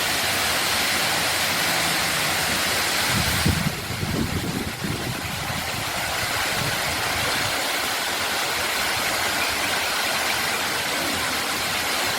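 Steady rushing roar of a waterfall, an even wash of falling water, with a brief low rumble about three seconds in.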